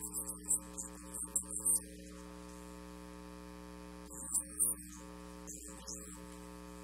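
Steady electrical mains hum with several stacked tones, broken by short, faint hissy crackles in the first two seconds and again about four seconds in.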